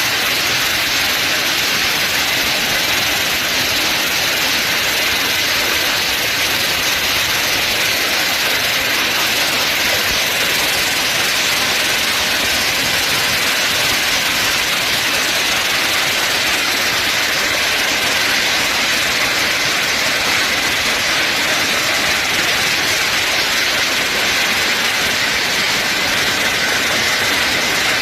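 Heavy rain and hail pouring down in a storm, a loud, steady, dense hiss.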